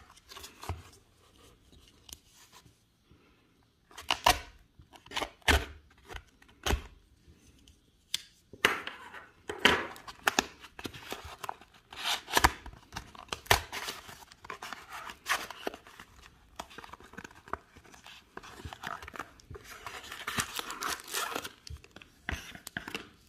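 Duct tape being ripped and peeled off a cardboard-wrapped package in repeated tearing strokes, after a few sharp clicks about four to seven seconds in. A plastic bag crinkles near the end.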